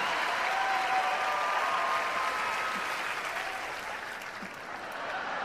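Large theatre audience applauding, with a few held calls rising over the clapping; the applause dies down near the end.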